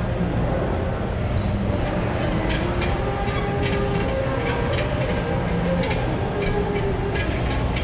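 Gym room noise: a steady low rumble with faint wandering tones, and from about two and a half seconds in, a run of light metallic clicks and clinks like weight-stack plates and machine parts.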